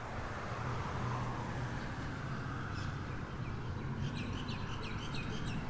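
City street ambience: a steady low traffic hum, with a small bird chirping in a quick run of short high calls from about halfway in.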